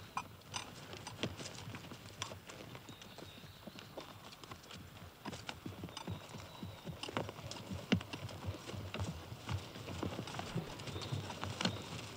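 Several horses walking at a slow pace, their hooves clopping in an uneven, overlapping rhythm.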